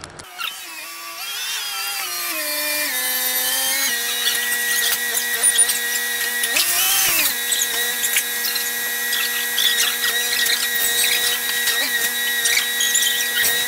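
Forklift engine and hydraulics running with a steady high whine as it sets down a pallet. The pitch falls over the first few seconds, then holds steady apart from a brief rise and fall about seven seconds in, with light clicks and rattles throughout.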